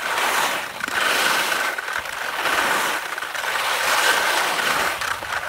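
Skis scraping and chattering over firm, sun-cupped spring snow during downhill turns, the noise swelling and easing about once a second.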